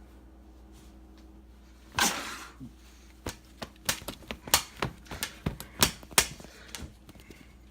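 A short rustle about two seconds in, then a run of irregular sharp clicks and taps.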